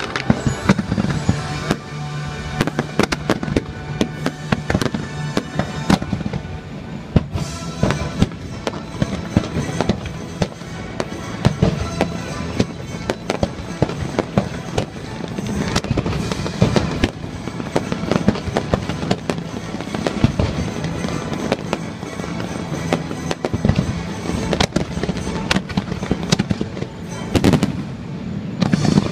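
Fireworks show: many bangs and crackling bursts in quick succession over a musical soundtrack.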